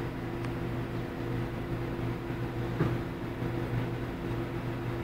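Vehicle engine idling with a steady, even hum, with a short knock a little before three seconds in.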